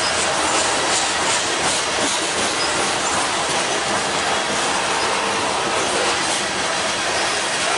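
Freight train cars, boxcars and covered hoppers, rolling past: the steady noise of steel wheels on rail, unbroken and even in level throughout.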